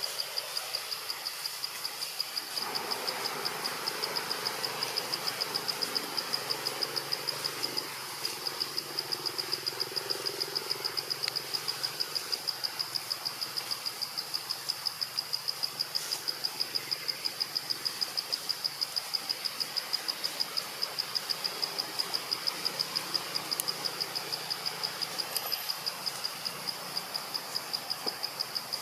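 An insect trilling steadily at a high pitch, a fast, even pulse without a break. A soft wash of background noise joins about two seconds in.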